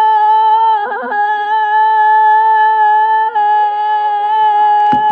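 A person's voice holding one long, steady high note, with a brief wobble about a second in. Evenly spaced clicks, about three a second, join near the end.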